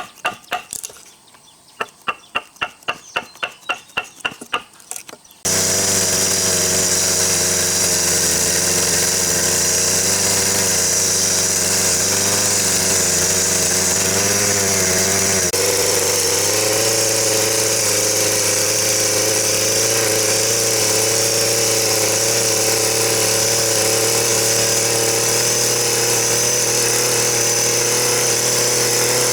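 A run of quick, evenly spaced sharp taps, then about five seconds in a motor-driven power tool starts abruptly and runs steadily, its pitch wavering briefly around the middle.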